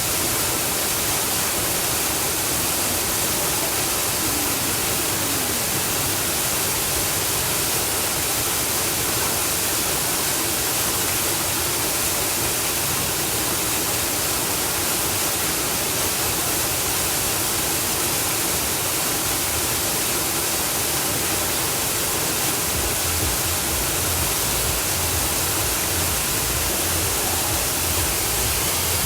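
Waterfall: a steady, unbroken rush of falling water. A low rumble joins in near the end.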